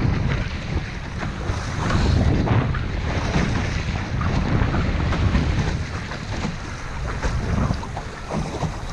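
Strong gusty wind buffeting the microphone, with water rushing and splashing along the hull of a small sailing boat under way.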